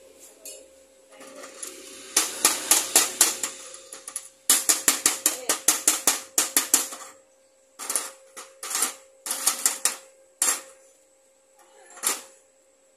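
Rapid metallic tapping in bursts, about eight sharp strikes a second, then slower single taps with short gaps.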